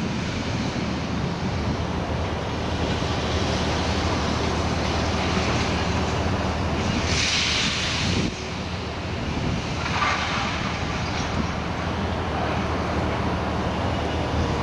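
Liebherr 954 material-handling excavators running with a steady low hum as they swing grapples of scrap metal, with a brief rush of hiss-like noise about seven seconds in.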